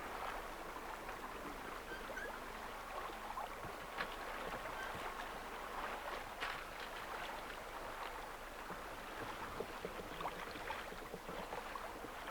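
Water rushing and splashing along the hull of a small sailing yacht under way, with scattered small clicks and knocks.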